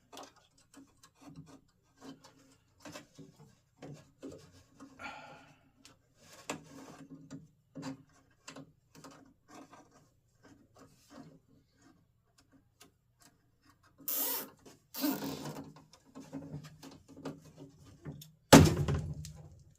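Plastic zip ties being pulled through their ratchets and handled around a Jeep YJ door's latch linkage: scattered small clicks and short rasping rubs, with two louder rasps past the middle and one sharp, loud knock near the end.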